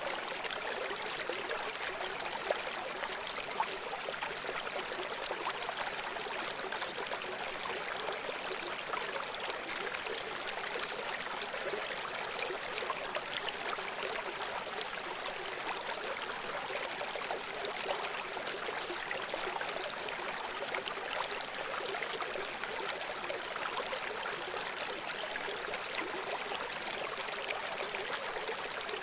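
Running stream: water flowing and rippling steadily over rocks, a continuous rushing with small splashes and trickles, with little bass.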